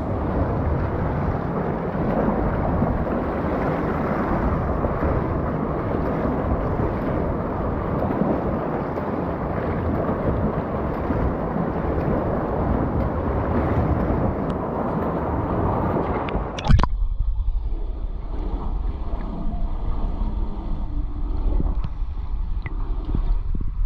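Water splashing and churning from a swimmer's freestyle strokes, heard as a steady rushing noise. About two-thirds of the way through there is a sharp knock and the sound turns to a muffled low rumble, as when the microphone goes underwater.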